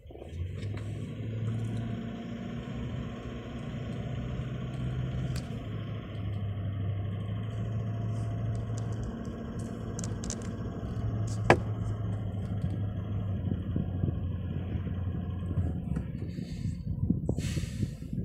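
Car engine and road noise inside the cabin while driving, a steady low hum, with a single sharp click about halfway through.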